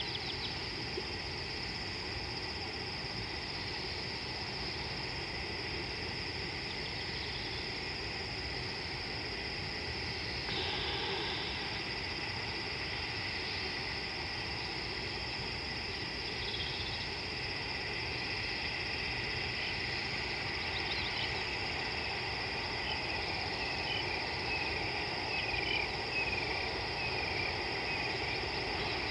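Steady chorus of insects, crickets among them, making a continuous high-pitched ringing over a low background hiss. In the last several seconds comes a run of short falling chirps, about two a second.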